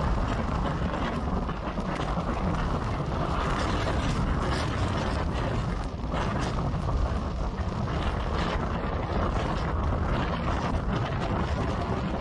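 Loud, steady rush of a tornado's wind, deepest in the low end, buffeting the microphone, with faint scattered clicks.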